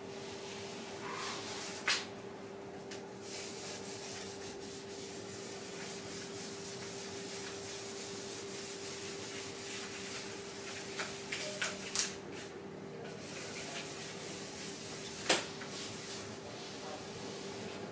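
Charcoal rubbing and scraping across a large sheet of paper, with the paper rustling under a body shifting on it, over a faint steady hum. A few sharp clicks come about 2 seconds in, in a cluster near 11 to 12 seconds, and again near 15 seconds.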